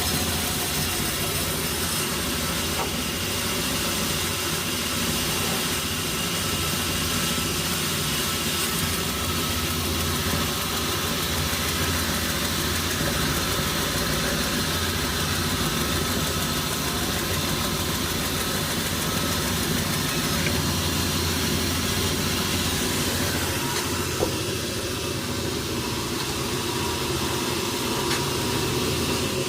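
Sawmill machinery running steadily: a constant engine-like hum with hiss, with one sharp click about 24 seconds in.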